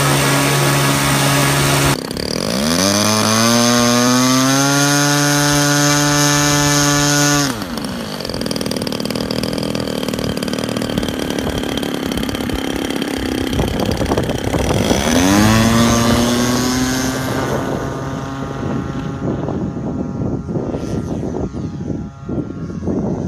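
Model airplane motors running near full throttle in several short takes. First a steady high-pitched run, then a motor spooling up in rising pitch and holding before it cuts off. A second spool-up rises and holds near the middle, with noisier stretches between.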